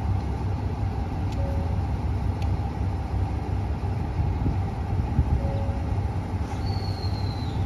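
JR Shikoku 2700 series diesel multiple unit standing at the platform with its engines idling, a steady low rumble. Near the end a thin high whistle sounds for about a second, falling slightly in pitch.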